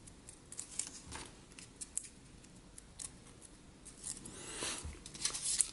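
Faint ticks and rustles of a thin card model-kit pipe piece being rolled and bent between the fingers, with a longer scraping rustle about four and a half seconds in.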